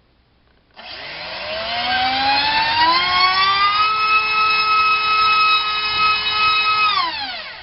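Racerstar BR2406S 2300 kV brushless motor spinning a DALPROP 5045 bullnose propeller on a 4S battery during a thrust test. The whine starts about a second in, climbs in pitch as the throttle comes up, holds steady at high speed, then falls away quickly near the end as the motor spins down.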